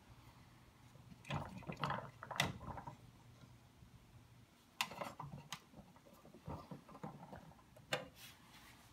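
1965 Tonka pressed-steel toy dump truck being handled: scattered clicks and light metal rattles in several bursts as the dump lever is worked and the bed is tipped up, with a sharper click near the end.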